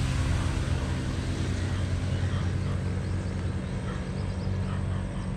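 A steady, low engine drone with an outdoor background hiss.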